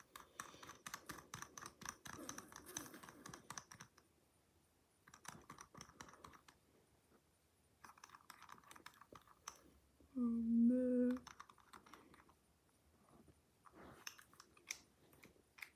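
Dial of a combination padlock being spun fast, a rapid run of fine ratcheting clicks in several spells with short pauses, as the combination is dialled in. About ten seconds in, a short hum from the person lasts about a second and is the loudest sound.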